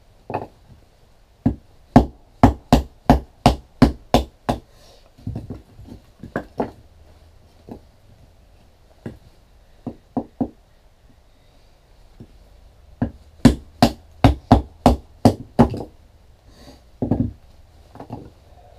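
A wooden baton knocking on the spine of a Delta Whiskey Farnhawk fixed-blade knife, driving the blade down through a short round of wood to split it. The knocks come in two quick runs of about eight, roughly three a second, with scattered single knocks between and after.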